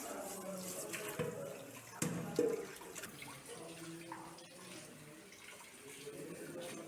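Tap water running into a sink during dishwashing, with a few knocks of dishes or utensils about a second and two seconds in.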